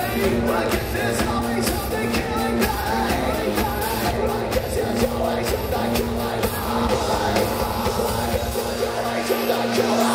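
Live electro-industrial music played loud through a festival PA and heard from inside the crowd: a steady electronic beat under a held synth note, with singing.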